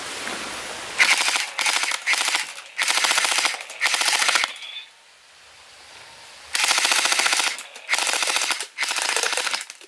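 Electric gel-bead blaster firing on full auto in about eight short bursts of rapid clicking shots, with a pause of about two seconds midway.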